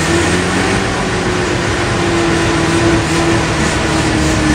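Mazda RX-7's freshly rebuilt 12A rotary engine running steadily on the choke, heard from inside the cabin.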